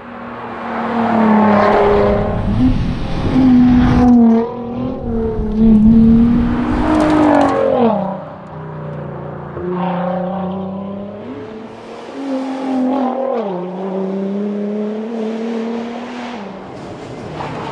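Nissan R35 GT-R's twin-turbo V6 at racing speed, accelerating hard through the gears, its note climbing and then dropping sharply at each gear change. It is loudest in the first half and runs at steadier, lighter throttle later on.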